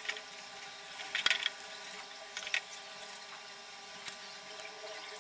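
Faint rustling and a few soft taps as hands press paper and a stiff cardboard card down onto a soft, freshly poured sweet mixture in a glass dish, over a low steady hum.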